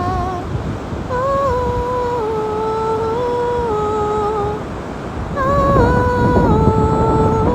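A woman's voice humming a slow wordless melody in long held notes that step down in pitch, in two phrases with a short break between them. Underneath is a steady low rush of wind and surf.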